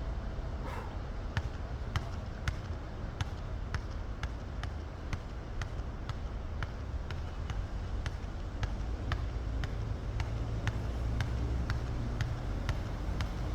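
Robot vacuum cleaner running with a low steady hum, a sharp click repeating about one and a half times a second, and a short faint chirp under a second in.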